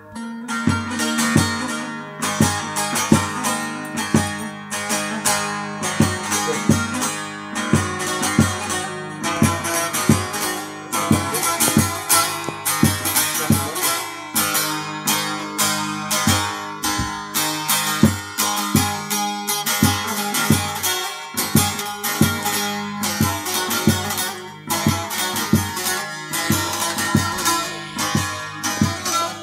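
Bağlama (Turkish long-necked saz) played solo with a plectrum: fast, even strumming over steadily ringing strings, an instrumental passage with no singing.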